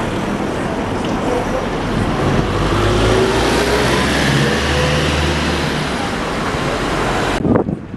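Hybrid double-decker bus passing close by and pulling away, its engine hum heavy in the low end and a thin whine rising in pitch as it accelerates, over street traffic noise. The sound breaks off sharply near the end.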